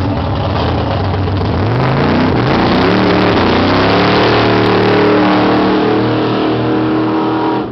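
Chevy Nova drag car's engine accelerating hard under full throttle. Its pitch climbs about two seconds in and then holds high over a loud rushing noise until it cuts off suddenly near the end.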